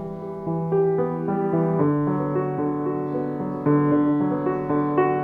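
Slow instrumental music on piano or keyboard: held chords over a low bass note, the harmony shifting about every second, with a new bass note about two seconds in.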